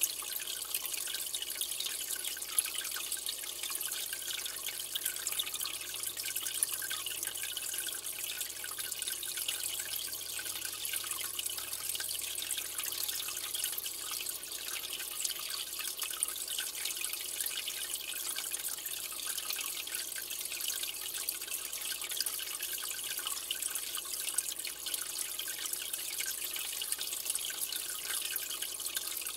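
Aquarium water trickling and splashing steadily, with a fine patter of drips: the circulation of the tank's filter.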